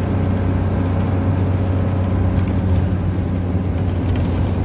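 Motorhome engine and tyre noise heard from inside the cab, running steadily along a dirt road with a constant low hum.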